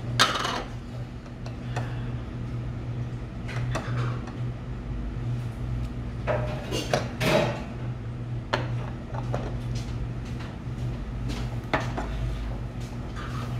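Metal chopsticks and a spoon clinking and scraping against bowls and plates in scattered light knocks, with a cluster of clinks near the middle. A steady low hum runs underneath.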